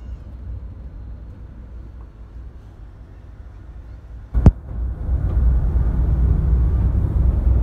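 Low rumble of a coach's engine and tyres heard from inside the cab while driving at speed, with a single sharp knock about four and a half seconds in, after which the rumble is louder.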